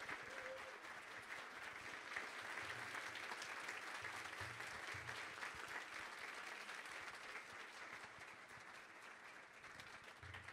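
Audience applauding: a dense, steady patter of many hands clapping that thins out in the last few seconds.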